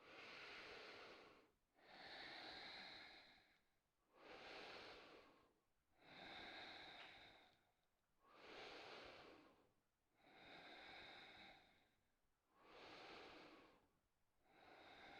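Faint, slow, deep breathing close to the microphone: eight even in-and-out breaths, each lasting about a second and a half to two seconds, taken while holding a yoga stretch.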